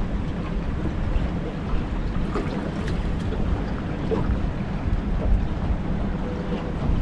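Strong wind buffeting the microphone: a steady, gusty low rumble, with a few faint small clicks.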